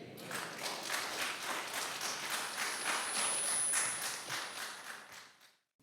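Congregation clapping and applauding as the sermon ends, dying away and cutting off shortly before the end.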